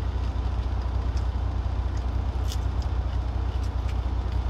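Steady low rumble of an idling truck engine heard inside the cab, with a few faint clicks about a second and two and a half seconds in.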